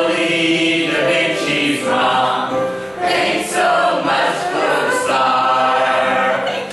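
Several voices singing together in held notes, an improvised hymn-style song.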